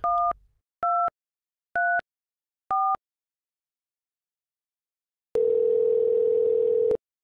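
Four short two-tone keypad beeps, about a second apart, as a number is dialled on a mobile phone. A few seconds later a steady low phone tone sounds on the line for about a second and a half, then cuts off suddenly.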